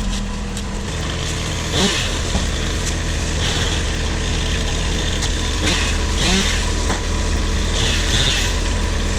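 An engine running steadily at a constant speed, with a short hissing burst repeating every two seconds or so.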